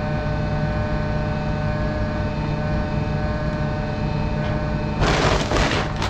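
Tractor engine running steadily with a level hum. A loud burst of noise comes in about five seconds in and lasts under a second.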